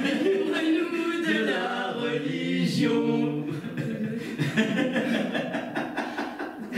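A man's and a woman's voices singing a cappella in long held notes, a mock-liturgical chant in the manner of a church prayer.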